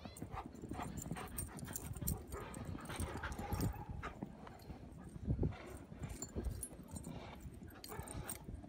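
Dogs romping in snow: a run of irregular soft thuds from feet in the snow, with a faint dog whine about two to three seconds in.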